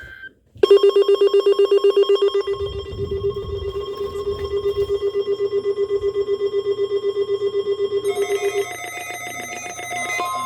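Emergency alert receiver sounding its electronic alarm for a weather radio Required Weekly Test: a loud, rapidly pulsing beep, about seven or eight pulses a second, on one pitch. About eight seconds in it stops and several higher tones take over.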